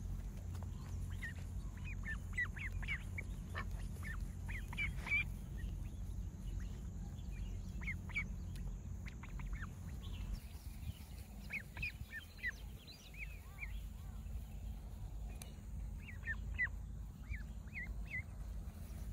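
Ducklings peeping: many short, high chirps coming in scattered clusters, over a steady low rumble.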